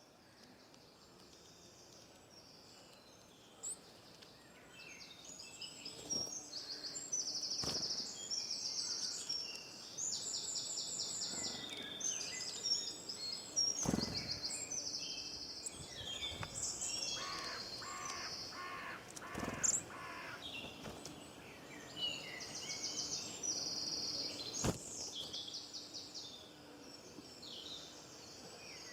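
Several songbirds singing at once, overlapping high-pitched trills and chirps, with a slower series of repeated lower notes in the middle and a few sharp clicks.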